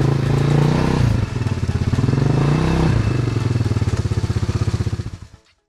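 Quad bike engine running at low speed, dropping to a lumpy idle about a second in with individual firing pulses audible, then briefly revving up again before fading out near the end.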